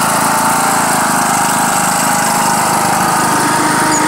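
John Deere riding lawn tractor's engine running steadily while the tractor pulls a skateboarder on a tow rope.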